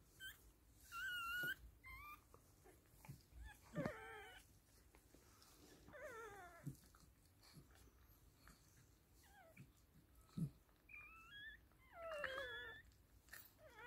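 Newborn miniature schnauzer puppies squeaking and whimpering faintly: a scattering of short, high-pitched cries, several falling in pitch.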